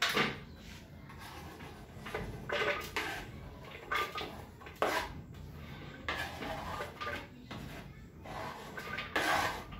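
Kitchen knife blade scraping chopped vegetables off a wooden chopping board into a glass blender jug, in a series of irregular scrapes and knocks.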